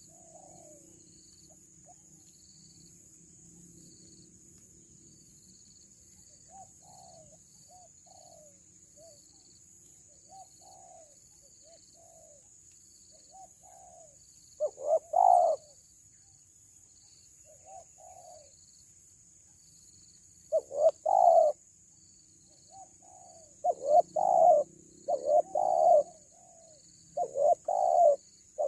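Spotted doves cooing: soft, scattered coos through the first half, then loud coo phrases about halfway and again a few seconds later, building to a quick run of loud coos near the end, over a steady high-pitched drone.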